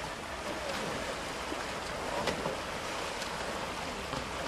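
Steady wash of splashing pool water from swimming players, with wind on the microphone, faint distant voices and a few light knocks.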